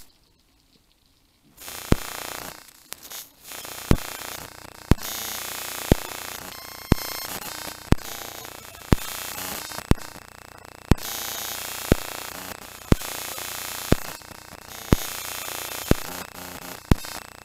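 Background music with a hissing, noisy texture and a sharp beat about once a second, coming in about two seconds in after a short near-silent gap.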